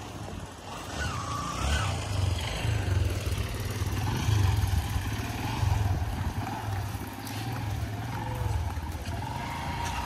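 A motorcycle engine running in the street, under a heavy, uneven low rumble on the microphone.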